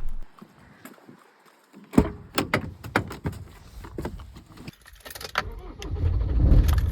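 A series of clicks and knocks from keys and fittings in the van's cab, then the Ford Transit van's engine starting about six seconds in and running with a steady low rumble.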